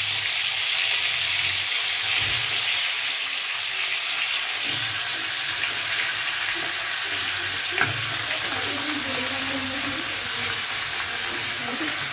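Fish head pieces sizzling steadily as they fry in hot oil in a metal kadai, with a single click about eight seconds in.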